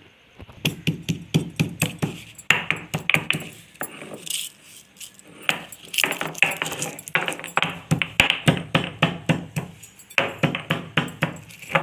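Pestle pounding dry-roasted cloves and cinnamon bark in a mortar: quick repeated strikes, several a second, in three runs broken by two short pauses.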